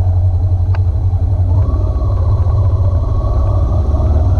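Motorcycle engine running with a steady low rumble, heard from on the bike while riding.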